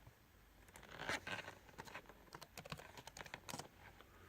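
Faint, irregular clicking of computer keyboard keys, a dozen or so sharp taps between about one and three and a half seconds in.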